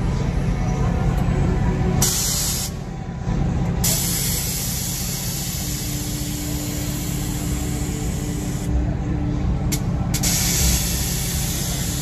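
Three loud bursts of hiss, like compressed air being let out: a short one of under a second, then one of about five seconds, then one of about three, each starting and stopping abruptly over a steady low rumble.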